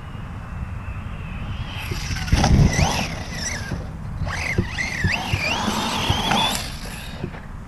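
Brushless electric motor of a Reely Raptor 6S RC buggy whining as the car speeds past on dirt, its pitch rising and falling with the throttle, with a heavy thump about two and a half seconds in. Wind rumbles on the microphone underneath.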